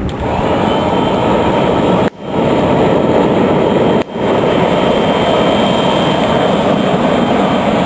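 Electric air-mattress pump running and blasting air into a homemade forge's freshly lit wood fire: a loud, steady rushing of pump and forced-draft flames with a faint high whine. The noise drops out briefly twice, about two and four seconds in, each time coming straight back.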